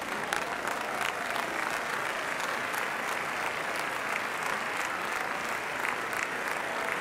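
Large crowd of spectators applauding steadily, a dense even patter of many hands clapping.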